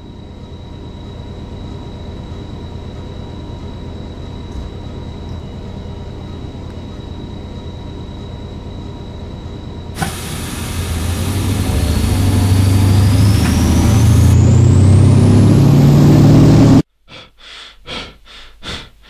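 Rumble of a train running on the track, steady at first, then jumping louder and building with a rising whine as the locomotive speeds up. It cuts off suddenly near the end, followed by a quick series of short taps.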